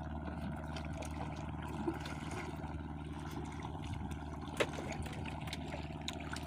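Water lapping and trickling around small wooden fishing boats at sea, over a steady low hum. One light knock comes about two-thirds of the way through.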